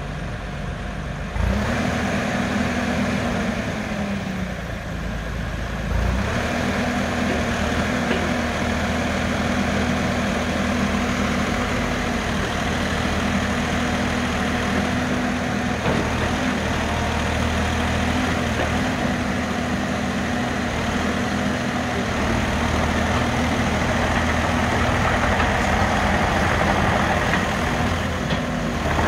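JCB 67C-1 excavator's diesel engine running as the arm and bucket are worked. It picks up speed about a second and a half in, eases off briefly, then picks up again around six seconds and holds steady.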